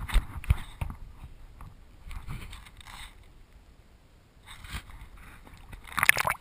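Water splashing and slapping against a plastic sit-on-top kayak, with two sharp knocks about half a second in. Near the end comes a louder burst of splashing as the camera dips into the water surface.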